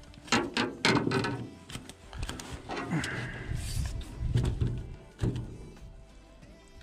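Knocks and thumps of a landing net and fishing gear bumping against a small boat's hull as the net is swung aboard. The knocks come thickest in the first second or so, then more scattered.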